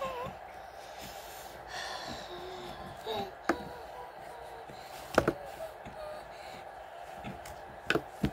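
A girl's brief breaths and short vocal noises over a steady faint hum, with a few sharp clicks from handling the phone, two of them doubled, about five and eight seconds in.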